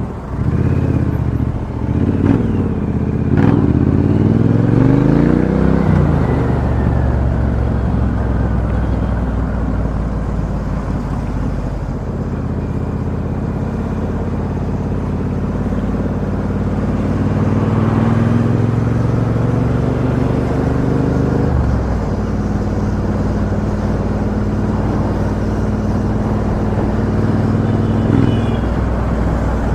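2017 Triumph Bonneville T120 Black's 1200 cc parallel-twin engine running through a Customer aftermarket exhaust, heard from inside the rider's helmet while riding. The exhaust note rises as the bike accelerates a few seconds in and drops at a gear change around six seconds in, holds steady, then rises again and drops at another shift a little past twenty seconds.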